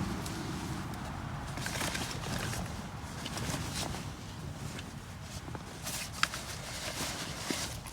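Camping gear being handled during packing up: scattered rustling and light clicks, with one sharper tick about six seconds in, over a steady low rumble.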